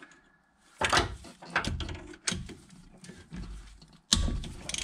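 Hand tools knocking and clinking against metal as a socket and bar are worked on a van's driveshaft flange bolts: a handful of separate sharp knocks after a quiet first second, the loudest near the end.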